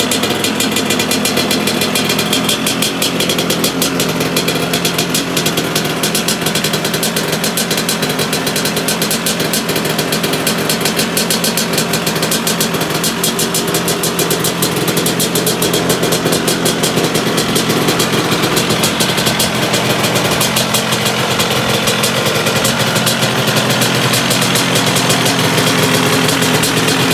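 Vespa scooter's two-stroke engine, fitted with a Quattrini M200 cylinder kit, running steadily while the scooter stands still, with a rapid, even beat of firing pulses.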